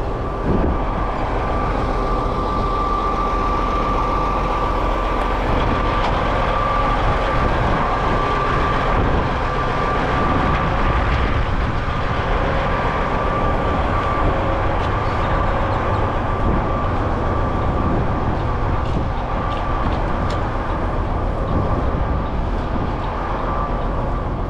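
Heavy tow truck's engine running steadily, with a steady high whine over the rumble.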